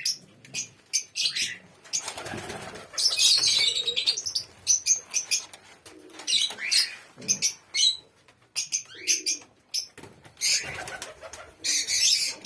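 Doves flapping their wings in bursts of rushing noise, with low cooing and many short, high chirps between them.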